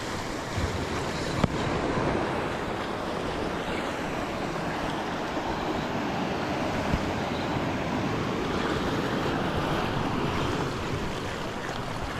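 Sea surf washing against rocks, a steady rushing noise with some wind on the microphone, and a single short knock about one and a half seconds in.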